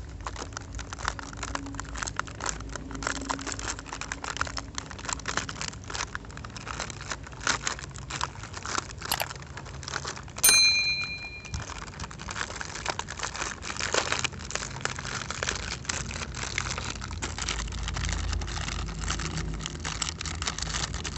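Plastic blister packaging on a card of toy cars crinkling and crackling as hands peel and tear it open. About nine seconds in there is a sharp click, then a short chime of a few clear ringing tones, the loudest sound here: a subscribe-button sound effect.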